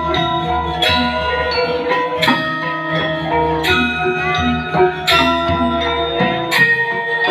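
Balinese gamelan playing for a Rejang dance: bronze metallophones ring on many held notes, with loud struck accents about every second and a half over a low gong hum.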